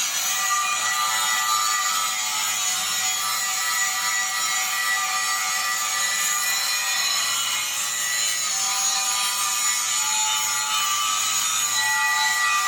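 Angle grinder grinding metal, running steadily under load with a continuous high, hissing grind.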